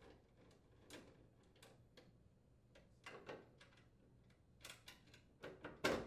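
Faint, irregular clicks and ticks of a screwdriver turning out small mounting screws from the dryer's sheet-metal rear bulkhead, with a few louder knocks near the end as the plastic water inlet mist valve is worked free by hand.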